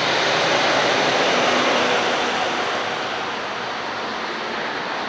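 Traffic noise from a busy street: the rushing tyre-and-engine noise of vehicles going by, swelling about a second in and slowly fading.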